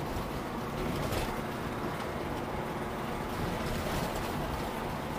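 Steady engine and road noise of a moving Toyota car, heard from inside the cabin.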